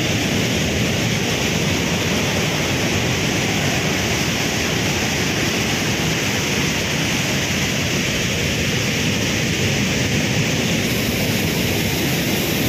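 Sea surf and wind making a steady, even rush.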